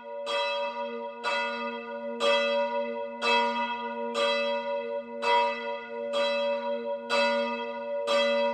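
A single church bell tolling at an even pace of about one strike a second, each strike ringing on into the next over a steady low hum.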